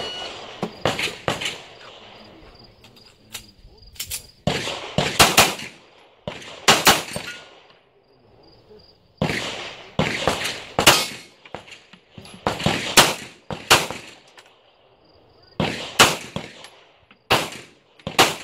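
Handgun shots fired in quick pairs and short strings, in seven or eight groups separated by pauses of a second or two. Insects buzz with a faint, steady, high tone behind the shots.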